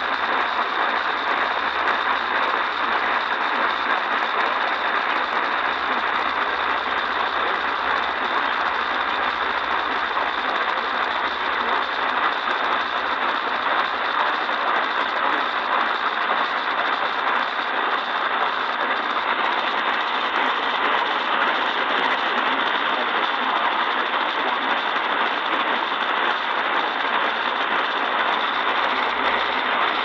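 Steady hiss of radio static from an Eton Elite Traveler portable radio's speaker, with no voice coming through.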